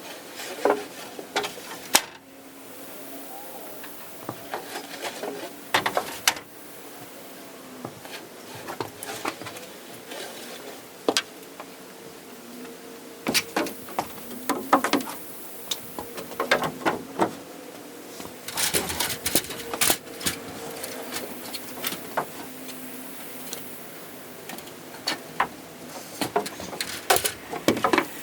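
Irregular knocks and clatter of wooden sheathing boards being handled and fastened, in scattered clusters, over a faint steady hum.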